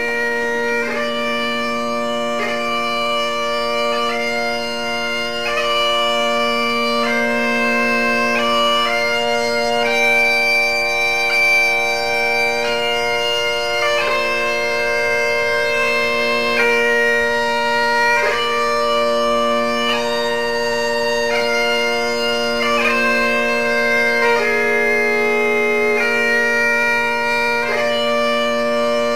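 Highland bagpipes playing a slow tune over a steady drone.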